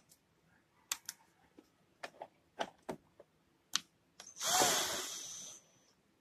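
A few light clicks and knocks, then about four seconds in a cordless drill runs for about a second, spinning the dog feeder's rotor inside its PVC tube, and fades as it slows.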